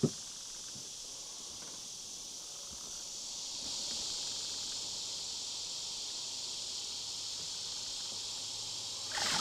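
Steady insect chorus of crickets and other insects, a high, even hiss that grows a little louder a few seconds in. A single short knock at the very start.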